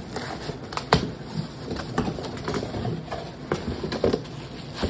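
Cardboard box and plastic wrapping being handled: irregular knocks, scrapes and crinkling as a plastic-wrapped bike seat is pulled out of the box, with the sharpest knock about a second in.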